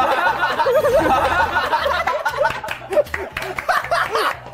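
Group of young men laughing and snickering.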